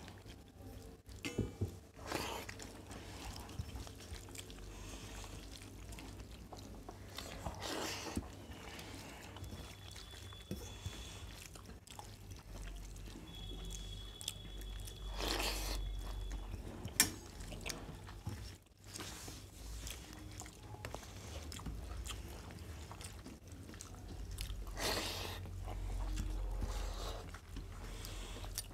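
Two people eating rice and curry with their hands from steel plates: quiet chewing and the soft squish and scrape of fingers mixing rice, with scattered small clicks against the steel and one sharper click about two-thirds of the way through. A low steady hum underlies it.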